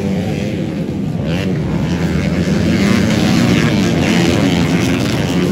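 Several dirt bike engines running and revving together on the track, their pitches rising and falling across one another.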